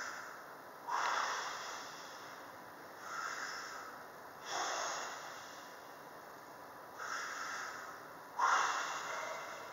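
A man breathing hard and slowly while holding a plank with every muscle braced: five loud breaths, in and out, spaced about two seconds apart. The strongest ones start sharply and fade away.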